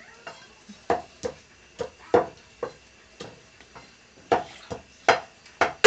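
Pestle pounding crushed crabs into a paste in an earthenware mortar: about a dozen dull thuds, roughly two a second, some harder than others.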